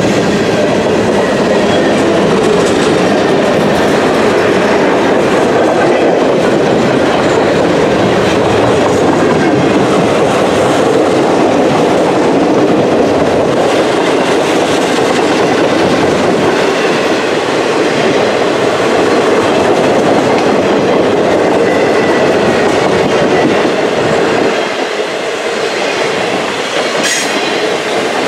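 A work train's cars rolling steadily past: covered hoppers, then flatcars racked with long strings of welded rail. The wheels run continuously over the track, with one sharp click near the end.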